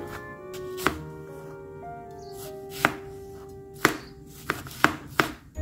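Chef's knife slicing strawberries on a plastic cutting board: six sharp knocks of the blade on the board, a second or two apart at first and coming quicker near the end. Soft background music plays under it.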